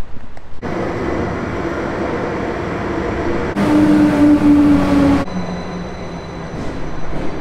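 Double-deck commuter train hauled by a red SBB electric locomotive arriving at an underground platform, its steady rumble echoing off the station walls. About halfway through, a louder hiss with a held low tone lasts for about a second and a half, then drops back.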